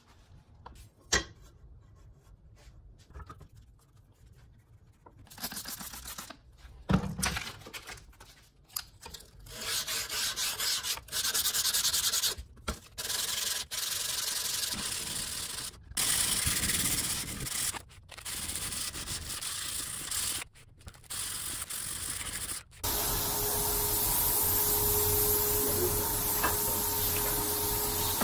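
Hand-sanding strokes along a steel knife blade clamped in a vise, in runs of a few seconds broken by short pauses. About a second in there is a single sharp click. Near the end the scraping stops and a steady hiss with a faint hum takes over.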